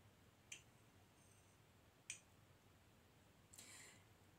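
Near silence, broken by two faint clicks of a metal spoon against a glass mason jar as jelly is scooped out, and a brief soft hiss near the end.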